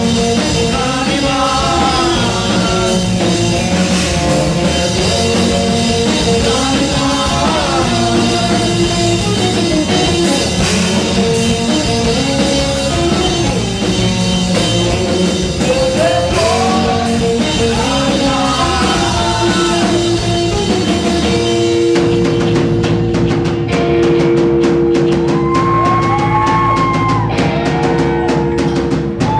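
Live rock band playing with drum kit, guitars, bass and a sung melody. About 22 seconds in, the cymbals drop out and two sustained notes hold under the melody.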